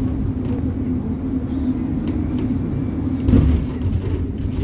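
City bus heard from inside the cabin while driving: a steady low engine and road drone, with a thump about three seconds in.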